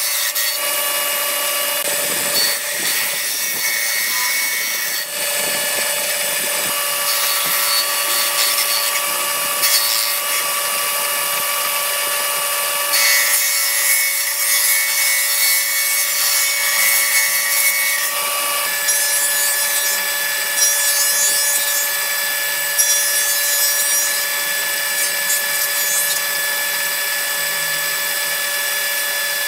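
Hitachi table saw ripping wooden boards: a steady motor whine under a rasping cut that swells and fades as boards are fed through. In the second half the cutting comes in short passes about every two seconds.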